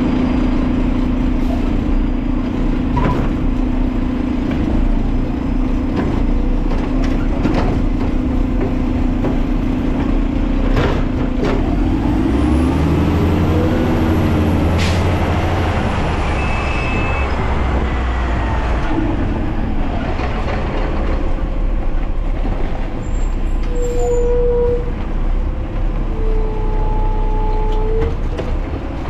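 Garbage truck engine running steadily as the truck drives, its pitch swinging up and down about halfway through. A couple of short tones sound near the end.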